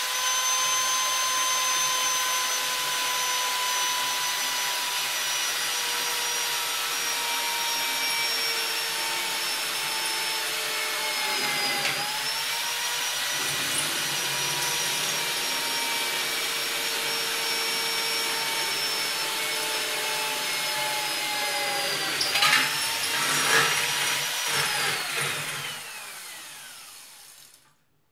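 Corded electric drill mounted in a homemade lever-operated drill-press jig, boring into metal. The motor whine sinks slowly as the lever is pulled down and twice dips and picks up again. Scraping and knocking of the bit in the metal come about three-quarters through, then the drill winds down with a falling whine and stops near the end.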